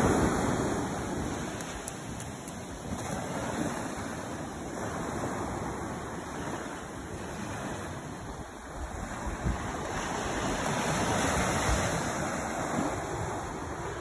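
Ocean surf breaking and washing up a sand beach: a steady rush of foam that swells and fades in slow surges.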